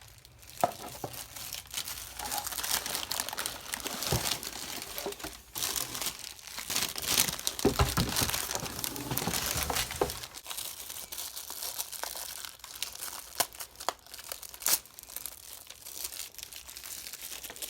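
Packaging crinkling and rustling with scattered clicks and knocks as the contents of a speaker box are unpacked by hand, loudest about halfway through.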